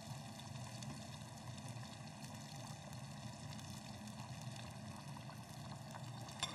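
Spaghetti boiling in a pot of water and being stirred with a utensil: a faint, steady bubbling, with a small click near the end.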